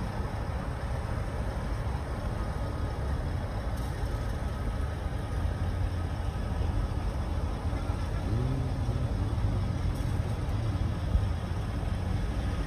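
A car's steady low rumble of engine and road noise.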